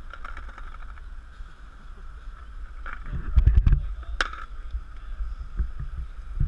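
Wind rumbling on an outdoor camera microphone, with a cluster of heavy thumps about three and a half seconds in and a single sharp click just after.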